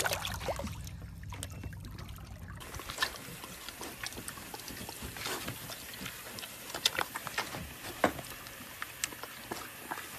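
Water lapping and sloshing in a small paddling pool around a pig, with many short wet clicks and small splashes. A low steady hum runs for the first couple of seconds and then stops.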